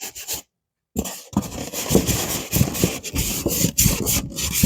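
Cardboard box and packing material rubbing and scraping against each other as a boxed miter saw is worked loose and pulled out, with small knocks, continuous after a brief dead-silent gap about a second in.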